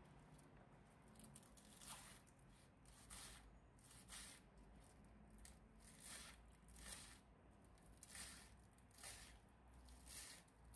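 Soft, faint squishing and scraping strokes of hand food preparation, roughly one a second.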